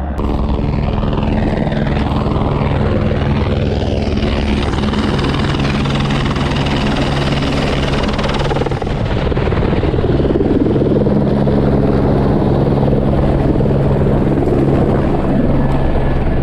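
Helicopter running: a loud, steady drone of rotor and engine. There is a brief dip about nine seconds in, after which it runs slightly louder.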